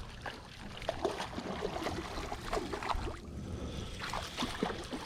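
Water splashing and trickling as a hooked rainbow trout thrashes at the surface of a creek while being played in.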